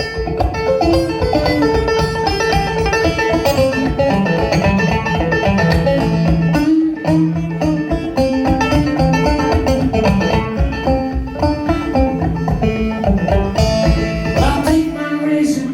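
Clawhammer banjo playing a steady, rhythmic instrumental run of plucked notes.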